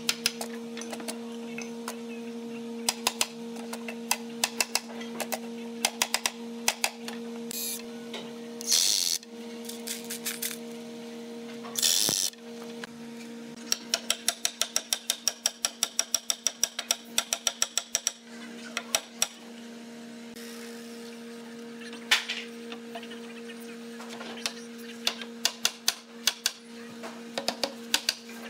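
A hammer knocking on a wooden cabinet frame as its mortise-and-tenon joints are driven together: scattered sharp knocks, with a quick run of light, even taps about halfway through. A steady low hum runs underneath.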